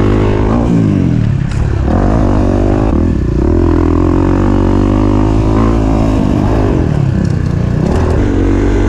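Dirt bike engine revving under hard riding. Its pitch drops and climbs back several times as the throttle is rolled off and on again.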